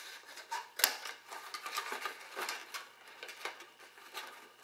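Scissors clicking and snipping at the wire twist ties that hold a plastic blaster barrel in a cardboard tray, with the cardboard rustling: a string of irregular light clicks, the sharpest about a second in.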